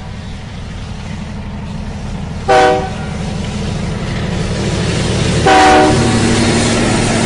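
A train's horn sounding two short blasts about three seconds apart, the second a little longer and louder, over a low rumble that grows steadily louder as the train draws nearer.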